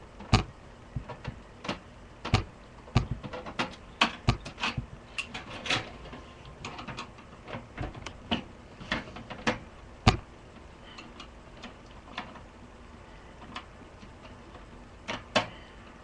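Irregular clicks and taps of a screwdriver and metal parts being worked inside a desktop computer case while screws are removed. They come thick for the first ten seconds, then die down, with a couple more near the end.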